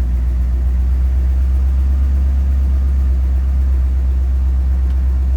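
Ford F-250's gasoline V8 idling with a steady, heavy low rumble while still warming up. It has a slight miss at idle, which the owner puts down to wrongly gapped spark plugs.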